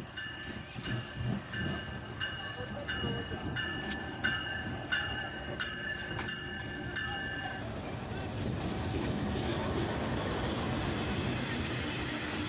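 A Pakistan Railways diesel locomotive pulls slowly into the station, with a high squeal repeating about twice a second for the first seven seconds or so. After that the rumble and clatter of the coaches rolling past grows louder and steadier.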